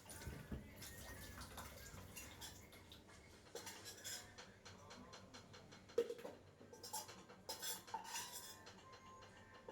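Faint clinking and knocking of small hard objects being handled, irregular, with a sharper knock about six seconds in.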